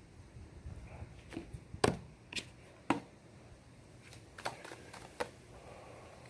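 Tarot cards being handled and laid down on a table: a string of about eight sharp, irregular clicks and taps, the loudest about two and three seconds in.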